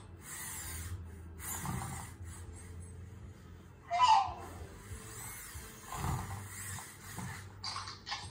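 ClicBot robot puppy moving its legs and head, its joint motors whirring in short spells, with short electronic puppy sounds from its speaker; the loudest is a brief yelp about four seconds in.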